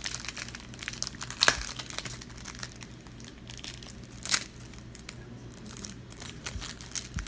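Foil trading-card booster pack wrapper crinkling, with cards rustling as they are handled: a steady run of small crackles, with two sharper, louder crackles about a second and a half in and a little past four seconds.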